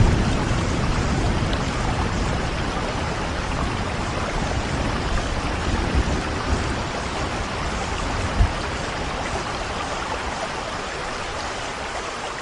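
Steady rain falling, with the tail of a low thunder rumble fading away over the first few seconds. A brief thump about eight seconds in.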